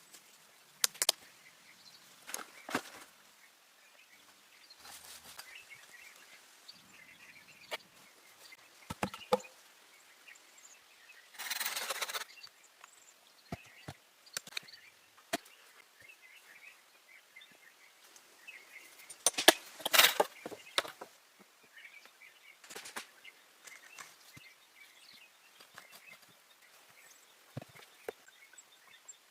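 Scattered sharp knocks and cracks of wood being worked, with a short scraping rush about twelve seconds in and a louder cluster of knocks about twenty seconds in, over faint birdsong.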